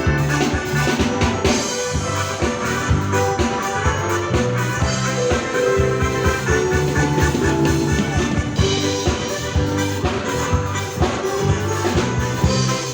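Jive band music with a steady drum beat, bass and horns.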